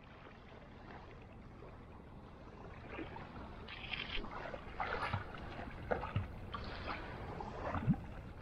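Water splashing and lapping: a steady wash of water that grows slowly louder, with irregular splashes about once a second in the second half.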